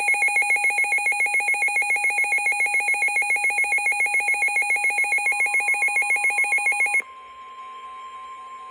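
Weather alert radio sounding its loud electronic alarm, a rapid beeping of about eight beeps a second that cuts off sharply about seven seconds in. Underneath it, and alone once it stops, runs the NOAA Weather Radio's steady single-pitch warning alarm tone, the signal that a warning is being issued.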